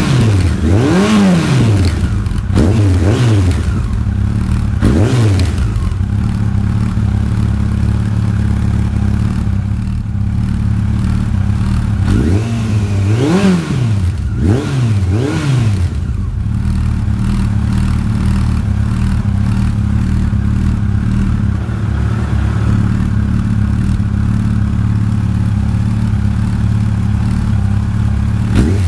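Yamaha FJR1300 inline-four idling through Delkevic 18-inch oval slip-on silencers with the baffles removed. The throttle is blipped several times in the first five seconds and again three times about halfway through, each rev rising and falling quickly, with a steady idle between.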